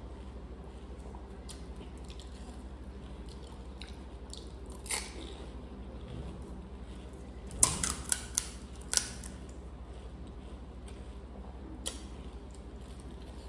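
Eating pani puri close to the microphone: a few sharp crunches of crisp puri shells being cracked and bitten, loudest in a quick cluster of four about eight seconds in, over a steady low hum.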